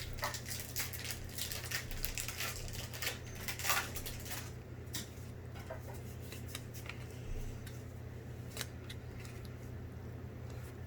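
Trading cards and booster-pack wrapper being handled: dense rustling and clicking for the first four seconds or so, then sparser single clicks, over a steady low hum.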